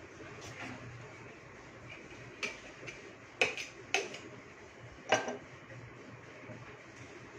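Cake-decorating tools being handled and set down on a kitchen counter: a few sharp clicks and knocks, the loudest about five seconds in.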